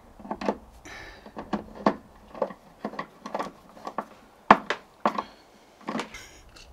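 Irregular clicks and knocks of heavy battery cables and metal fittings being handled and worked into place, the loudest knock about four and a half seconds in.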